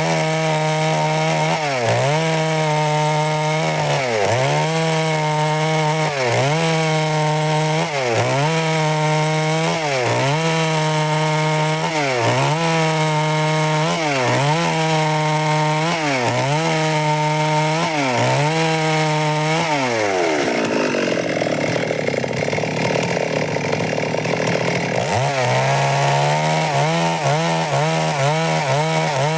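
Stihl MS 382 two-stroke chainsaw running at high revs while cutting wood, its pitch dipping briefly about every two seconds. About two-thirds of the way through the revs fall away for a few seconds, then it revs straight back up.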